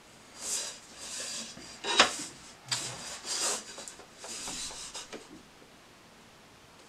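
Ballpoint pen scratching lines on paper while a steel ruler is slid and repositioned over the sheet, in several short rubbing strokes. A sharp knock about two seconds in is the loudest sound.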